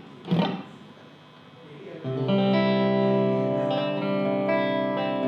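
Music on electric guitar with effects: two short strummed hits near the start, then a sustained chord rings out from about two seconds in.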